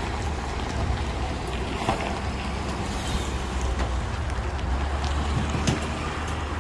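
Steady low rumble of a vehicle running, with wind noise on the microphone and a few faint clicks.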